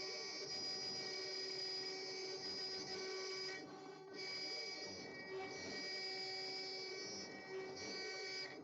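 TT1010SE CNC router running, with a steady high-pitched machine whine that dips briefly about four seconds in and cuts off near the end.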